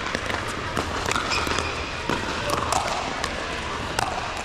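A ball bouncing on a hard court, heard as irregular sharp knocks over a hubbub of voices.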